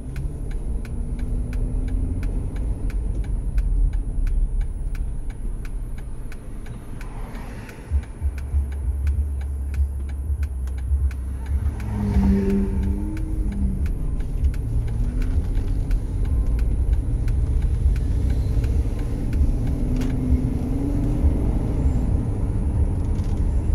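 A car's engine and tyres heard from inside the cabin while driving in slow city traffic: a steady low rumble that grows heavier about a third of the way in.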